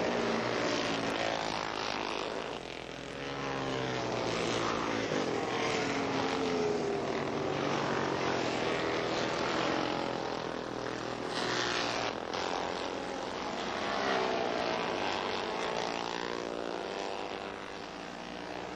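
Racing motorcycle engines passing at speed one after another, each one's pitch dropping as it goes by. The sound swells and fades several times.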